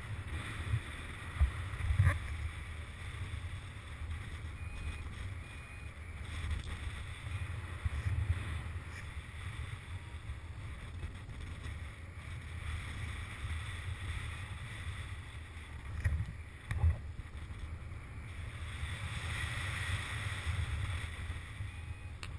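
Rushing airflow buffeting a GoPro Hero2's microphone in paraglider flight: a steady low rumble with louder gusts about two seconds in and again around sixteen to seventeen seconds in.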